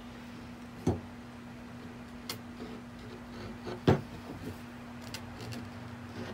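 Three sharp knocks, the loudest about four seconds in, with a few fainter clicks. These come from a glass wine bottle being tilted and rocked against a tabletop while pliers grip a screw driven into its stuck cork. A steady low hum runs underneath.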